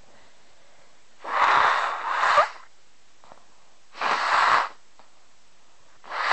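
A person sneezing three times, a couple of seconds apart: deliberately induced sneezes, each a loud burst of breath.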